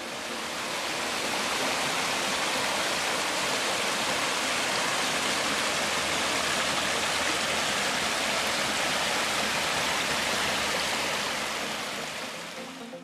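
Brook water rushing over rocks and a small cascade: a steady, even hiss that fades in over the first second or so and fades out near the end.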